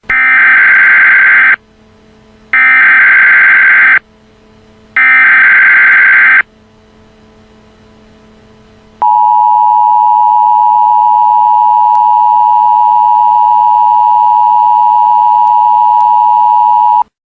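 Emergency Alert System tones: three short bursts of warbling SAME header data, each about a second and a half with a second's gap between them, then the EAS attention signal, a loud steady two-note tone held about eight seconds that cuts off abruptly. This sequence marks the start of an emergency alert broadcast.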